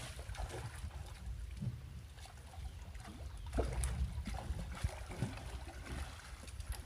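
Low rumble of wind and water around a small fishing boat, with scattered light knocks and clicks from gear being handled.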